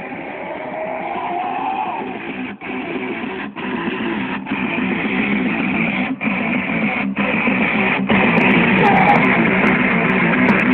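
Background rock music with strummed electric guitar, broken by several brief dropouts and growing louder.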